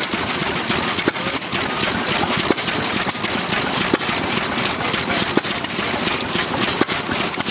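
Ruston Hornsby OK 5½ hp stationary engine running steadily: a rapid mechanical clatter of valve gear and side shaft, with a sharper knock about every second and a half.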